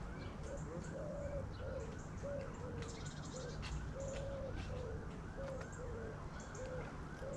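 Pigeon cooing in a run of short low phrases, over a second bird's fast, evenly repeating higher call and scattered faint chirps.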